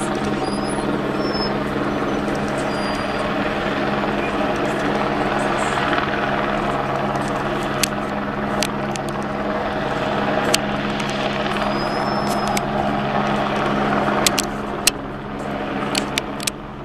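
Helicopter flying slowly while towing a power-line pulling rope, its rotor and turbine making a steady drone. A few sharp clicks come in the second half, and the sound falls away near the end.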